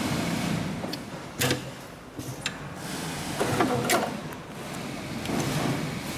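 Hightex 7700P double-needle industrial stitching machine sewing heavy leather slowly in short runs, a steady low machine hum broken by a few sharp knocks about a second and a half in and again near four seconds.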